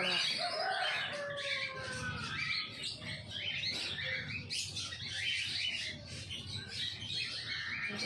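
Rose-ringed parakeet calling: a rapid run of short chirps with a few longer sliding notes mixed in.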